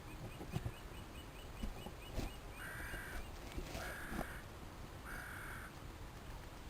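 Three drawn-out animal calls of about half a second each, evenly spaced, after a run of faint quick chirps and a few light knocks.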